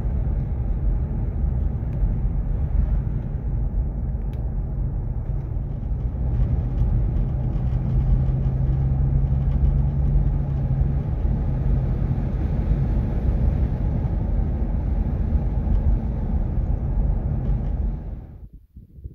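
Nissan Xterra driving on a paved road: steady road and engine rumble, with a low hum that comes up for a few seconds in the middle. It fades out near the end.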